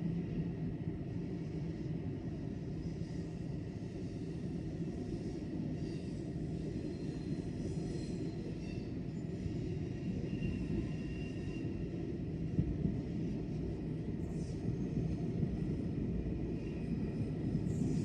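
Steady low rumble of a large railway station's ambience, with faint high tones coming and going about halfway through.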